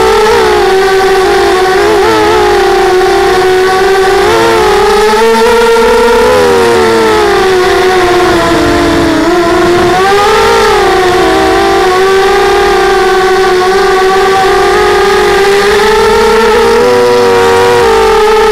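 Electric motors and propellers of an FPV drone, heard through its onboard camera: a loud, steady buzzing whine whose pitch wavers up and down with the throttle, dipping about nine seconds in and climbing again just after.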